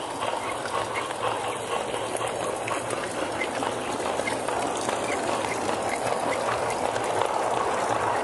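G-scale model train rolling along garden railroad track, heard from a car in the train: a steady rolling rumble of wheels on rail with light ticks at regular intervals.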